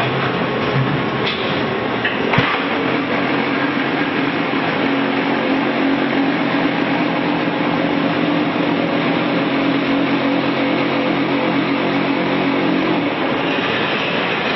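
Fully automatic concrete block-making machine running: a loud, steady mechanical din. A steady hum sets in about two seconds in and stops shortly before the end, and a single knock comes near the start.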